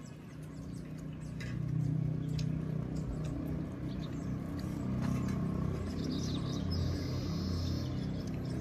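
A steady low engine drone, swelling about a second in and holding, with scattered light clinks of spoons on steel plates and a brief high chirp near the end.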